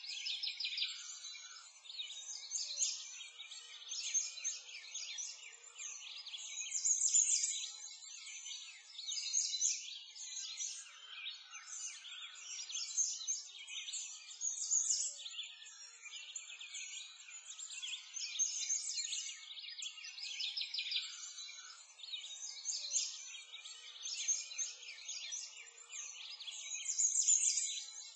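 Chorus of small birds chirping and trilling, many overlapping calls without a break.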